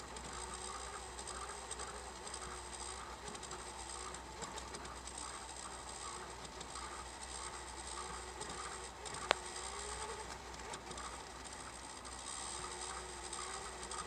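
VCR rewinding a worn, much re-used early-1980s Maxell high-grade VHS tape: a steady, rough mechanical whirring with a wavering tone. It sounds terrible, the sign of a tape that barely plays and has begun to shed. A single sharp click about two-thirds of the way through.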